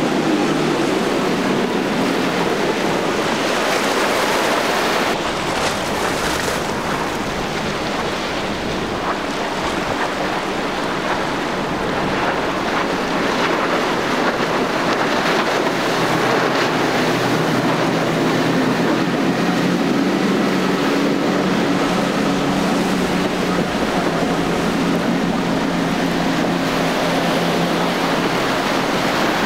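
Waves and surf washing, with wind buffeting the microphone and the steady hum of motorboat engines running underneath.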